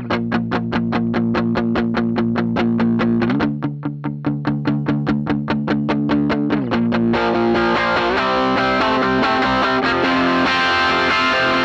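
Distorted electric guitar played through a Donner drive pedal into a cranked Fender Bassman amp. It plays fast, repeated muted chord strokes and slides to a new chord twice, then moves to sustained ringing chords with more treble.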